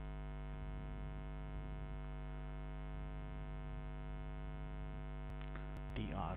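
Steady electrical mains hum with a stack of even overtones, picked up by the recording microphone. A few faint keyboard clicks come about five seconds in, and a brief bit of voice just before the end.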